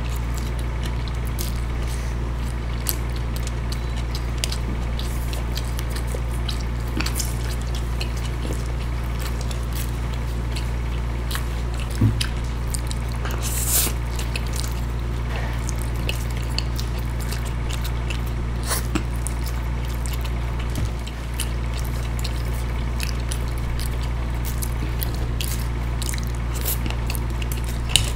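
Close-miked eating sounds: two people slurping and chewing noodles, with wet mouth sounds and light fork clicks, over a steady low hum.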